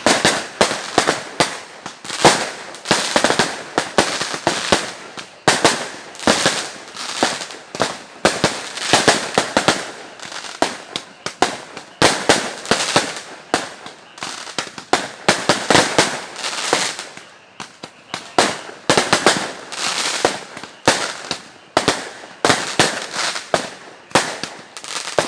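Fireworks going off in a dense, unbroken barrage of bangs and crackles, several bursts a second.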